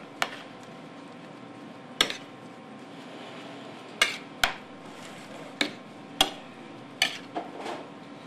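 Metal spoon mashing boiled potatoes on a ceramic plate, clinking and scraping against the plate. There are about nine sharp, irregular clinks, roughly one a second.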